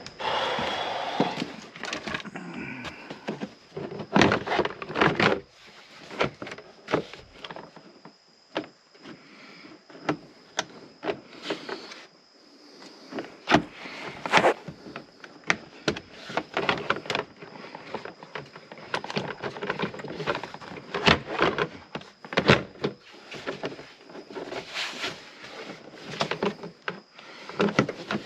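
Irregular clicks, knocks and rubbing as car interior parts are handled and pushed back into place during reassembly, some strikes sharp and loud.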